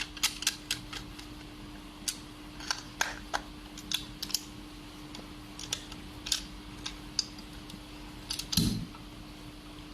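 Irregular small clicks and taps from handling a sliding door lock body and its screws while fastening it to the frame, with a louder knock near the end. A steady low hum runs underneath.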